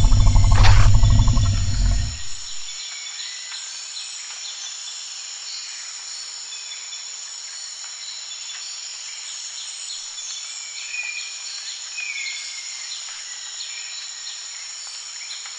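Music fades out in the first two seconds, leaving a jungle ambience: a steady high insect drone with occasional short bird chirps.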